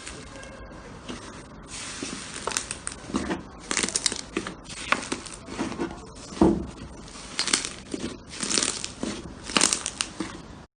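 Slime being squeezed and stretched by hand: an irregular run of sticky pops and crackles, the loudest about two-thirds of the way in, cutting off suddenly at the end.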